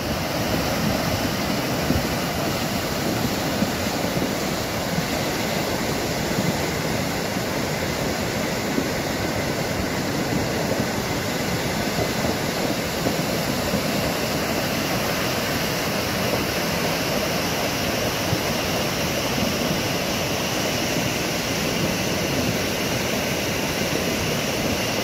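Swollen, muddy river in flood: fast water rushing and pouring over a broken crossing, a steady, unbroken noise of churning water.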